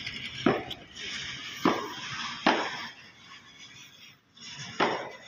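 Four sharp knocks, unevenly spaced over about five seconds, with faint rustling between them.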